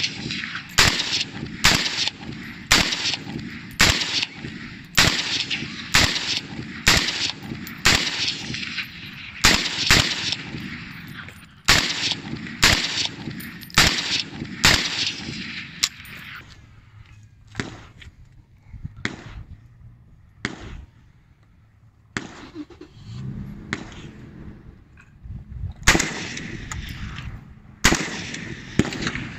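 HK G3A3-pattern 7.62×51mm battle rifle firing single shots, roughly one a second, each shot trailed by a short echo. The shots thin out to a few scattered ones in the middle and pick up a steady pace again near the end.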